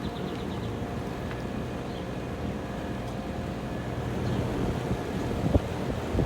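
Outdoor unit of a central air conditioner running, a steady hum and whir of compressor and condenser fan. Two short low knocks near the end.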